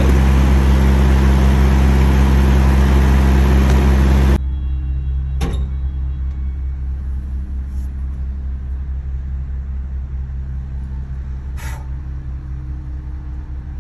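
Semi-truck's diesel engine idling close by with a loud, steady low hum. It cuts off suddenly about four seconds in, and a quieter low rumble follows, heard from inside a car, with a single click and later a short rustle.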